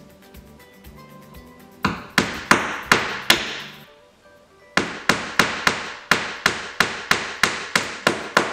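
Hammer driving 1-inch panel board nails through the top countertop board into the layer below. There are about five blows, a short pause, then an even run of about fourteen quicker blows, three to four a second.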